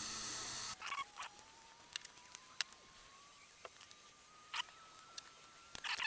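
Faint scattered clicks and scratches of small plastic parts and wiring being handled and pressed into a tight space. A steady background hum cuts off under a second in, and a faint thin whine rises slowly through the rest.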